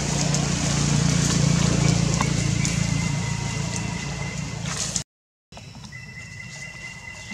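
A steady low rumble with scattered clicks and rustles in dry leaf litter, cut off about five seconds in. After a short gap comes quieter forest sound with a steady high insect drone.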